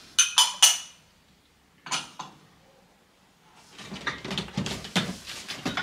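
Small white ceramic bowls clinking together: a few quick ringing clinks near the start and one more about two seconds in. From just before four seconds, rustling and small knocks as hands rummage in a cardboard box of packed dishes.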